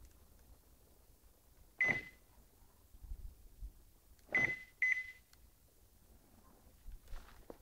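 BMW E46 factory DWA alarm siren giving short confirmation chirps: one beep about two seconds in, then two quick beeps half a second apart near the middle. These are its acoustic signal for arming and disarming.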